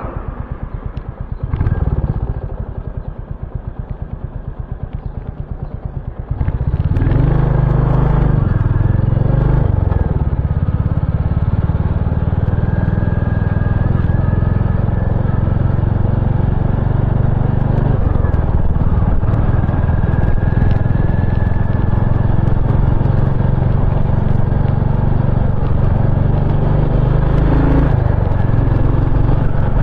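Royal Enfield GT650's parallel-twin engine running at low revs with an even beat. About six seconds in it suddenly gets much louder and stays loud and steady as the bike is ridden.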